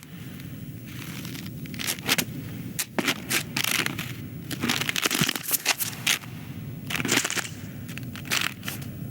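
Film sound-effects track: irregular sharp crunches and crackles, some in quick clusters, over a steady low ambient rumble.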